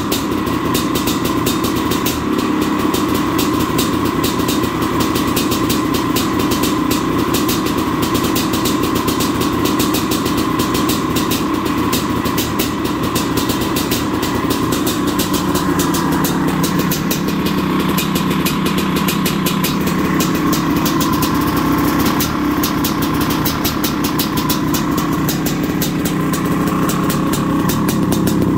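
Maico 700's big single-cylinder two-stroke engine idling steadily, running on its freshly repaired exhaust.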